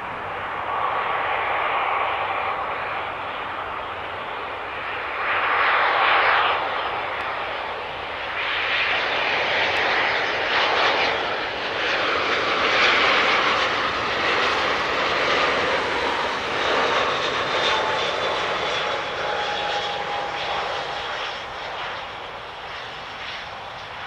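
Airbus A320-232 jet airliner on landing, its IAE V2500 turbofan engines heard as a loud rushing roar. It swells as the aircraft passes, peaking twice, then fades toward the end, with a faint engine whine sliding slightly down in pitch.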